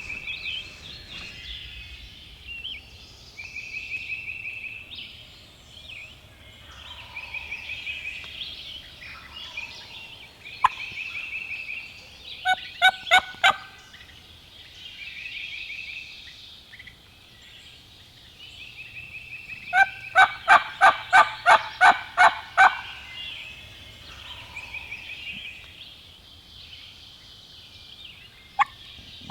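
Wild turkey yelping in two runs of evenly spaced notes, first about four and later about nine, each run at roughly three to four notes a second. A small bird's short, high trill repeats every couple of seconds in the background.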